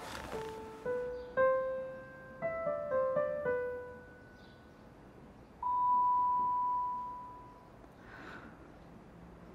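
Piano playing a short, halting melody of single notes that stops about four seconds in. A single clear, pure tone then sounds for about two seconds and fades out.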